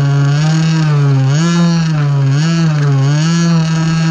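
RC buggy's motor and drivetrain whining close to the mounted camera, the pitch swinging up and down about once a second as the throttle is worked.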